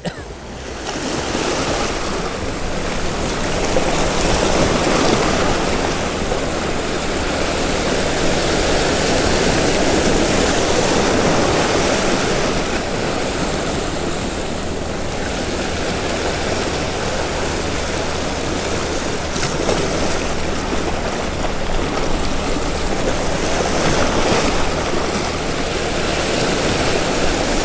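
Sea surf breaking and washing over rocks at the water's edge: a continuous loud rush that swells and eases slowly.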